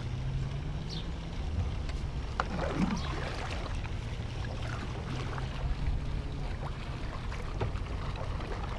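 Kayak paddle strokes dipping and splashing in shallow floodwater, with water lapping at the plastic hull. A faint low steady hum sits underneath and fades out about two-thirds of the way through.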